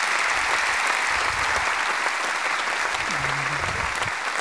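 Audience applauding steadily after a talk ends.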